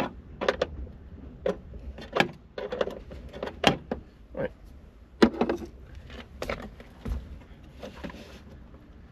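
A metal spanner clinking and knocking against the accelerator pedal's mounting bolts and bracket in irregular sharp clicks, as a tight bolt is worked at by hand.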